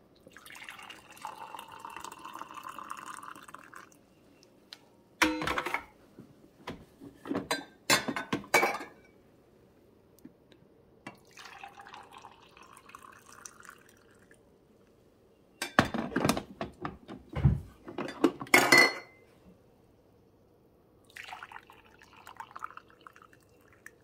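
Hot coffee poured from a coffee-maker carafe into a glass mug three times, each pour a few seconds long, the first from a stainless thermal carafe and the others from glass carafes. Between the pours, carafes and glass mugs knock and clink as they are set down, louder than the pouring.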